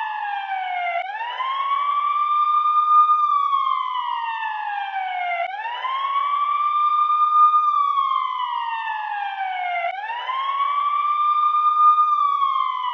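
Emergency-vehicle siren in a slow wail: each cycle rises quickly, holds at the top, then glides down over a few seconds, repeating about every four and a half seconds, three times.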